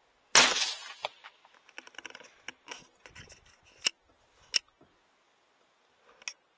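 A single rifle shot from a 6BR hunting rifle, sudden and very loud with a short decaying tail. It is followed by a scatter of small clicks and rattles, with two sharper clicks about four and four and a half seconds in and one more near the end.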